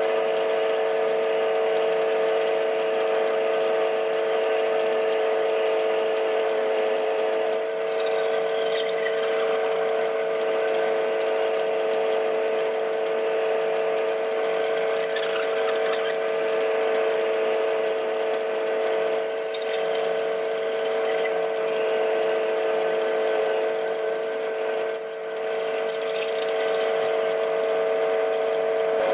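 TV16 lathe running with a twist drill boring into a spinning duralumin blank: a steady machine whine throughout, with a high-pitched squeal from the cut coming and going several times from about eight seconds in.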